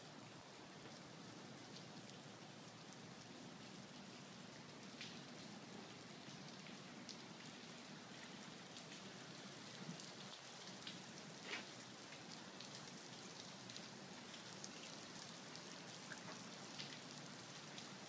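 Wet snow and rain falling onto wet pavement and gravel: a faint, even patter with scattered sharper drips, the loudest about two-thirds of the way through.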